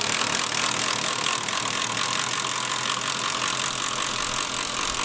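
Cordless drill with a 3/4-inch socket running steadily as it drives the screw of a Hensley Arrow hitch's spring-bar jack, tensioning the spring bar.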